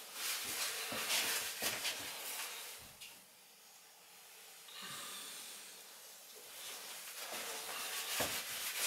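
Soft scraping and rubbing of a plastic silicone profiling tool drawn along a fresh bead of silicone sealant on a uPVC window frame, in several strokes with short clicks of the tool. There is a quieter pause in the middle.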